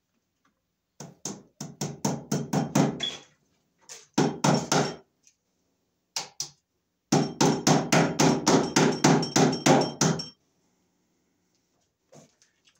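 Hammer blows overhead at the wooden floor joists: three quick runs of strikes, about four or five a second, the longest running about three seconds near the middle.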